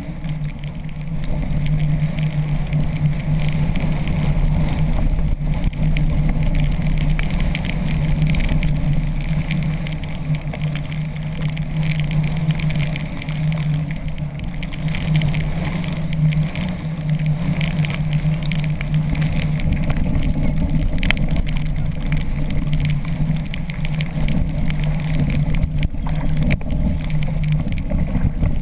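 Steady engine drone from the towing jet ski, under the rush of wind and water spray against the Hobie Tandem Island sailing kayak in stormy seas.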